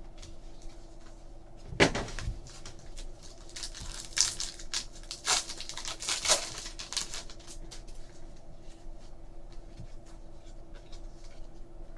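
Trading cards and pack wrappers being handled: a sharp click about two seconds in, then a run of crinkling and rustling, over a faint steady hum.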